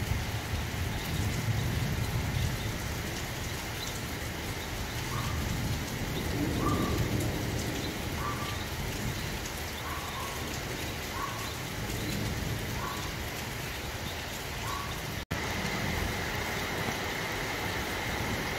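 Steady heavy rain falling, with low rolls of thunder rumbling under it. In the middle, a small animal gives a short call about seven times, roughly once a second. The sound cuts out for an instant near the end.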